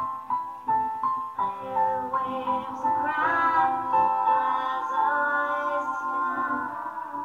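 Slow song with piano accompaniment and several layered vocal parts singing along with the melody.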